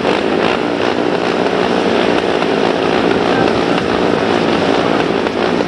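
Several speedway motorcycles' single-cylinder methanol engines running together at the start line, held at a steady rev while waiting for the start.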